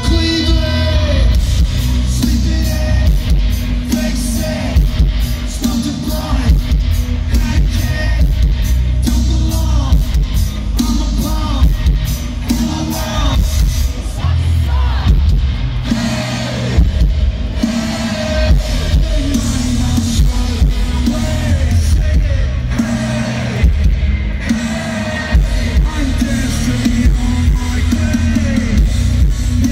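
Live rock band playing loud through a stadium PA: electric guitars, bass and drums, with singing over the top.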